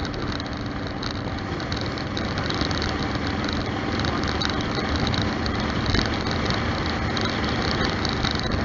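A Yamaha Star Stryker's V-twin motorcycle engine idling steadily, with an even hiss over it.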